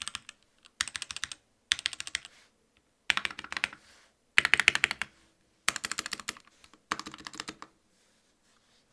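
Royal Kludge RK61 mechanical keyboard with spray-lubed Gateron Red linear switches, typed on a desk mat in quick bursts of rapid keystrokes. There are about seven bursts, each under a second long, with short pauses between, and the typing stops about a second before the end.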